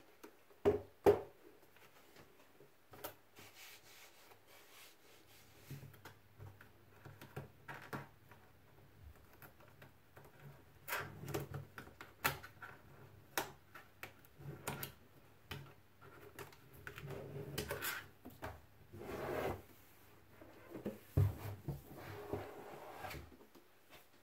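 Hands handling and turning over the hard plastic shell of a Graco booster car seat: scattered knocks and clicks of the plastic with stretches of rubbing and scraping against the table, including two sharp knocks about a second in.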